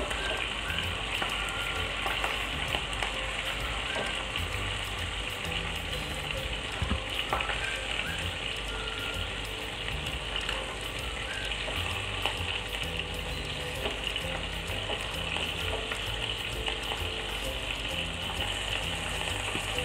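Chicken pieces frying in oil in a pan: a steady sizzle with many small crackling spatters.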